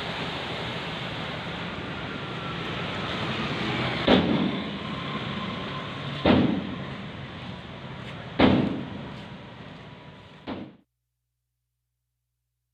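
Steady road-traffic noise with three heavy thumps about two seconds apart, each ringing briefly; the sound then fades and cuts off abruptly to silence near the end.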